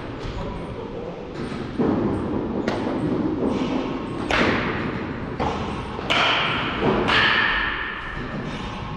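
Baseball practice impacts: about six sharp thuds at uneven intervals, each followed by a ringing tail, as balls are struck or caught.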